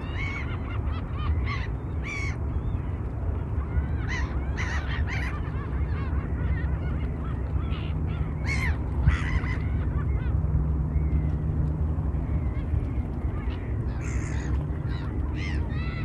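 Flock of waterbirds calling: short honking and squawking calls come in scattered clusters, over a steady low rumble.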